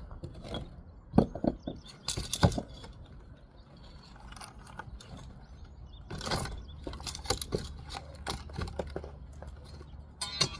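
Irregular taps, clicks and scrapes of hand masonry work, tools on brick and mortar, loudest about two seconds in and again near the end, over a steady low rumble.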